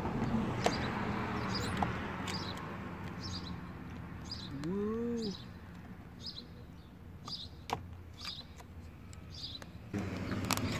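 A small bird chirping repeatedly, a little more than once a second, with a few sharp clicks from a snap-off utility knife trimming vinyl wrap on a plastic grille.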